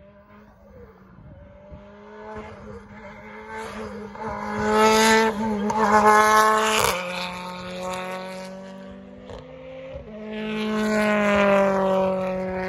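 BTCC touring car's turbocharged two-litre four-cylinder engine at racing speed, passing close. The note rises to its loudest around five to seven seconds in and breaks off sharply just before seven seconds; another engine note swells and falls in pitch near the end.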